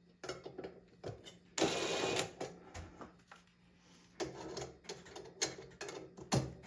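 Cordless power drill/driver running in two short bursts, turning the fan's screws, with clicks of handling and the bit on the screws in between.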